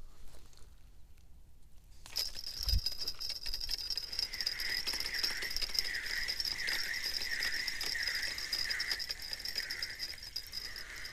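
Spinning reel being cranked to wind in line, starting about two seconds in: a steady whir from the reel's gears and rotor that dips and swells with each turn of the handle, roughly one and a half turns a second.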